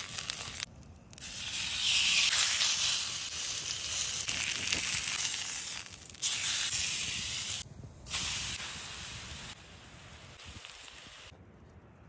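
Beef searing in a hot cast-iron grill pan: a loud steady sizzle that breaks off sharply and restarts a couple of times, then dies away near the end.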